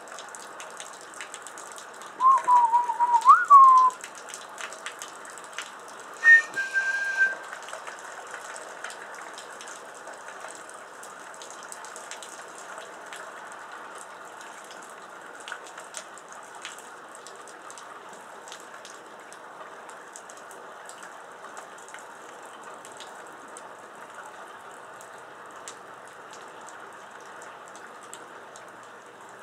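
Human whistling: a wavering note that swoops up and falls back, then a few seconds later a short higher note. Steady rain with scattered drips fills the rest.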